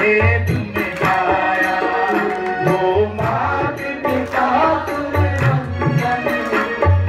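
Live devotional bhajan music: low hand-drum strokes keep a recurring beat under a pitched melodic line.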